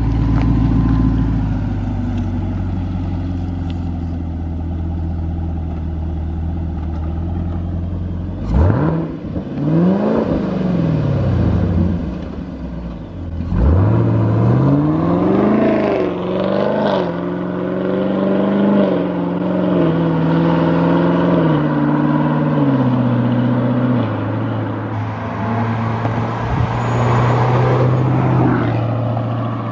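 Supercharged 6.2 L LT4 V8 of a Chevrolet Camaro ZL1 through a Borla ATAK NPP catback exhaust: a steady idle, then a sharp rev that rises and falls about a third of the way in, a second rev soon after, then the engine pulling under throttle with its pitch stepping down several times.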